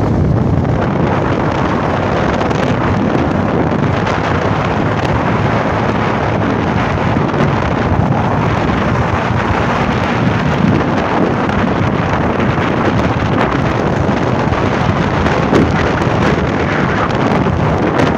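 Loud, steady rush of wind buffeting the microphone on a moving motorcycle.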